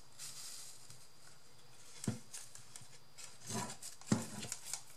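Hands handling a small wooden purse box while pressing fabric trim along its edges: light rubbing and scraping, with a sharp tap about two seconds in and a few short knocks near the end.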